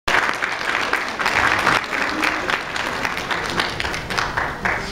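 Congregation applauding, the clapping thinning out and dying down toward the end.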